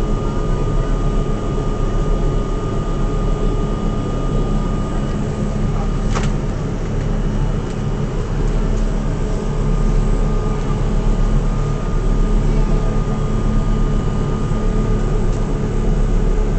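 Steady running noise of an R42 New York subway car heard from on board: a constant low rumble with a steady electrical hum, and one sharp click about six seconds in.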